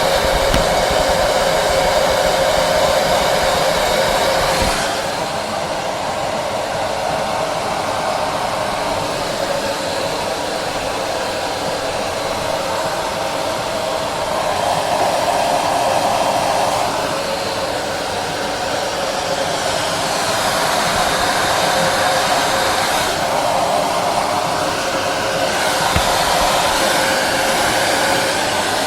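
REPRONIZER hair dryer running steadily, a continuous whoosh of air with a motor hum. About five seconds in the sound dulls and drops a little in level, then grows brighter again in the second half.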